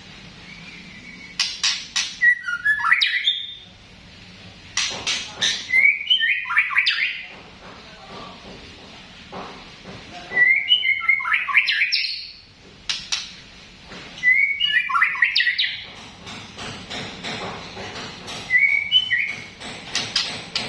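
White-rumped shama (murai batu) giving short, repeated chirping phrases about every four seconds, each with sharp clicks. The title calls the bird's sound coughing (batuk).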